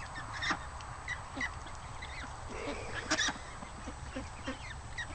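A flock of young domestic ducks and chickens calling: many short, overlapping calls, with one louder call about three seconds in.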